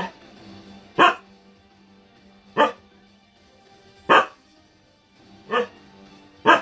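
A dog barking, six single sharp barks spaced about one to one and a half seconds apart.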